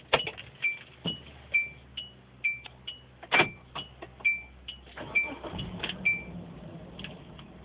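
A car's electronic warning chime sounding over and over, a short higher ding followed by a lower one, about two a second, with sharp clicks in between.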